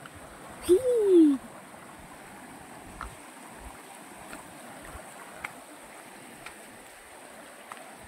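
Shallow stream running over flat rock slabs, a steady rush of water. About a second in, a person's voice gives one short loud call that rises and then falls in pitch, and a few faint taps follow.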